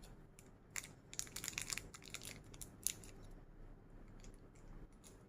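Faint clicking and rustling of small plastic figure parts and packaging being handled: a quick run of clicks about a second in and one sharper click near three seconds.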